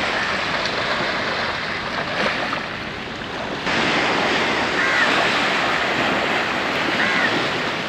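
Sea waves washing steadily on the shore, with wind rushing over the microphone; the sound steps up in loudness about four seconds in.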